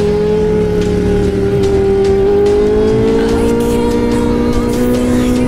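Motorcycle engine at steady cruising revs through an aftermarket SC Project-style exhaust, the note rising gently after about three seconds as it picks up speed. Wind rush sits underneath.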